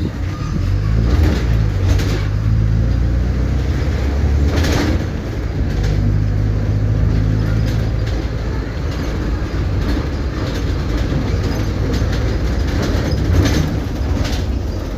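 Mercedes-Benz OF-1722M bus's diesel engine running while the bus is under way. The engine note dips about four and a half seconds in and picks up again a second or so later, with scattered knocks and rattles over it.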